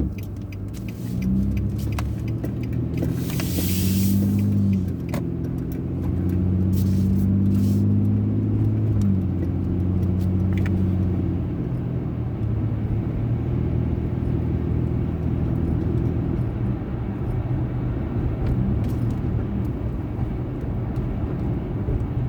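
Car engine and tyre road noise heard from inside the cabin as the car pulls away from a turn and accelerates. The engine note rises and drops back twice, as the transmission shifts up, then settles into steady cruising. There is a short burst of hiss about three seconds in.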